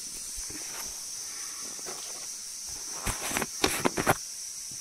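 Kitchenware being handled while spices go into the mortar: a quick run of about six light knocks and clicks about three seconds in, over a steady high hiss.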